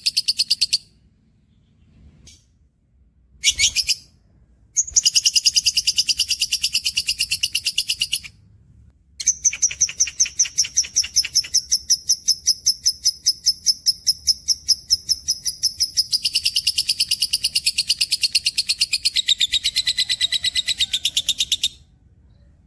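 Caged songbird singing a masteran training song: long runs of rapid, evenly repeated high chirps, about six a second. The runs come in bursts broken by short silent gaps, and the longest lasts about twelve seconds.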